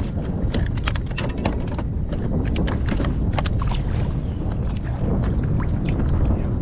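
Wind rumbling on the microphone over water lapping and slapping against a kayak, with a hooked fish splashing at the surface as it is reeled in: many short sharp splashes and ticks.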